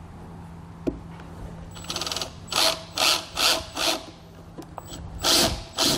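Cordless drill with a step bit enlarging a hole in a plastic trim panel, run in short bursts: four quick pulses from about two and a half seconds in, then a longer one near the end.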